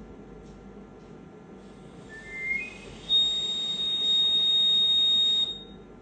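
Electronic beeper of an eVent Medical Evolution 3e ventilator sounding: a quick rising run of short tones, then one loud, steady high-pitched beep held for about two and a half seconds that cuts off sharply.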